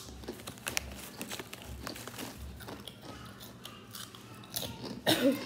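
Someone biting into and chewing kettle-cooked potato chips, with many small, crisp crunches. A brief voice sound near the end is the loudest moment.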